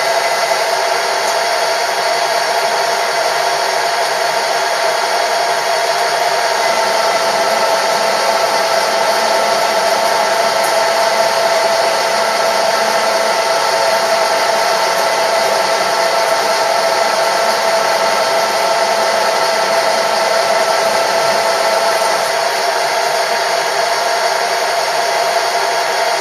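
A metalworking machine tool running steadily, its motor and spindle giving a constant whir with a steady hum.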